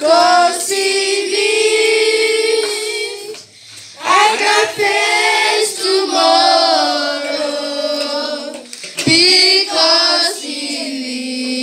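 A children's choir singing together, led by a girl singing into a microphone, in phrases with long held notes.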